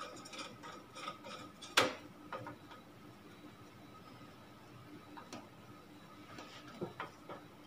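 Screwdriver driving a screw into a steel computer case, giving scattered small metal clicks and ticks, with one sharper click about two seconds in.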